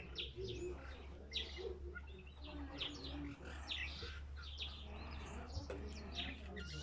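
Short, high chirps repeating irregularly, about every half-second to second, over a steady low hum.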